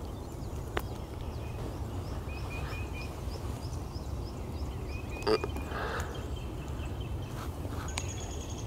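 Outdoor ambience of small birds chirping, including a quick run of about eight high notes, over a steady low rumble. A sharp click sounds about five seconds in.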